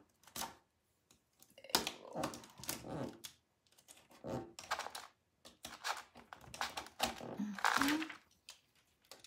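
Plastic rub-on transfer sheet rustling and scratching under fingers as it is pressed, rubbed and handled against a painted wooden bench, in irregular strokes with short pauses.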